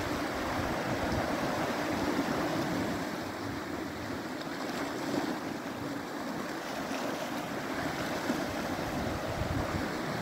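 Sea surf breaking and washing over a flat rocky shoreline in a steady rush, with wind buffeting the microphone.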